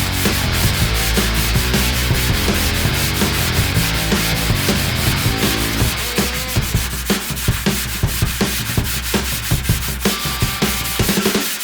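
Hand block sanding of body filler with 40-grit paper on a Durablock sanding block, in rapid back-and-forth strokes. The strokes stand out more clearly in the second half.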